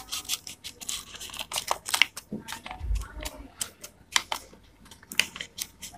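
Painted paper being folded and creased by hand: irregular crisp crackles and clicks of the paper, with a dull low bump about three seconds in.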